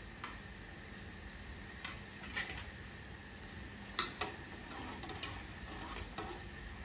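Vadai deep-frying in hot oil in a metal kadai, a steady soft sizzle, with a wire spider skimmer clinking against the pan several times as the fritters are turned.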